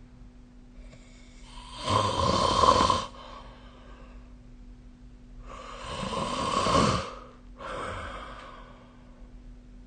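A person snoring in their sleep: two loud snores about four seconds apart, each a second or more long, then a shorter, softer one near the end.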